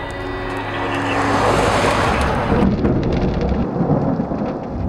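Thunderstorm: a loud hiss of heavy rain swells up as soft background music fades out, then, after a sudden cut about two and a half seconds in, a low uneven rumble of thunder.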